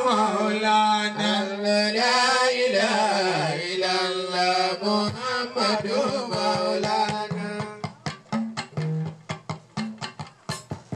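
Zikr chanting: a sung devotional melody over music until about eight seconds in, when the voice stops and rapid drum strokes with short low notes take over.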